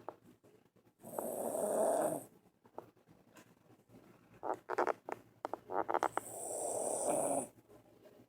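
Sleeping dog snoring: two long rasping snores about five seconds apart, with a few short choppy snorting breaths before the second.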